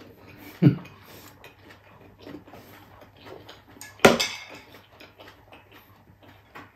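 Eating utensil clinking against a ceramic plate, with one sharp, loud clink about four seconds in, over small wet chewing clicks. A dull thump sounds just after half a second.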